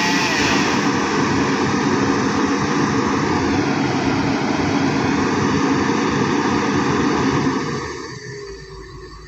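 Komatsu hydraulic excavator's diesel engine running under load as the boom and grapple work, a steady loud drone that drops in level near the end.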